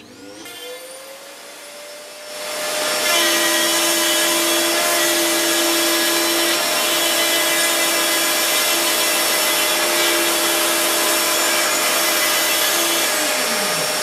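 Optical specimen router's spindle spinning up with a rising whine, then its router bit milling through a printed circuit board: from about two and a half seconds in, a loud steady whine over a hissing cutting noise as a microsection specimen is cut out of the board.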